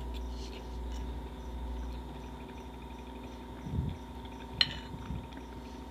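A man chewing a mouthful of food, with a metal spoon clicking once against a ceramic bowl about four and a half seconds in, over the steady hum of an electric fan.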